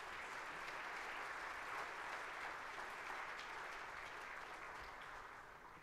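Audience in a lecture hall applauding, a steady patter of many hands clapping that fades away near the end.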